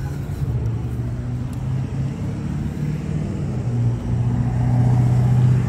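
A motor vehicle running with a steady low hum that gets louder about four seconds in.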